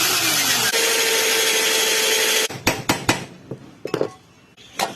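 A small electric power tool running with a loud steady hiss and a faint whine, cutting off abruptly about two and a half seconds in, followed by a few sharp knocks and clicks of parts being handled.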